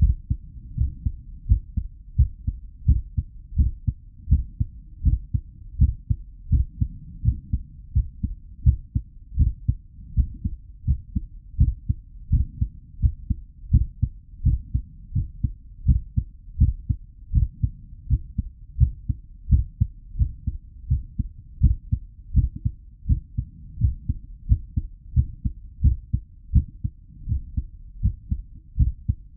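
Human heartbeat, a real recording, beating steadily at a medium rate. Each beat is a low, dull double thump (lub-dub).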